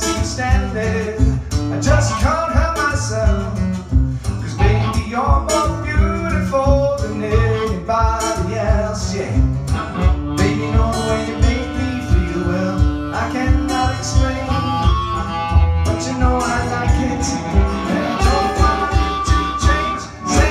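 Live acoustic music: a guitar strummed in a steady rhythm, with a voice singing a country-blues melody over it.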